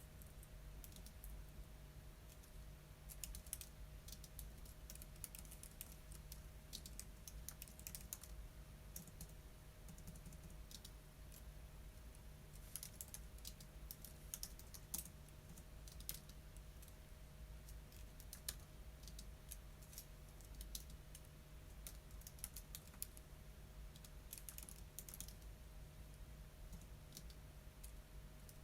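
Faint typing on a computer keyboard: irregular runs of keystrokes with short pauses between them, over a steady low hum.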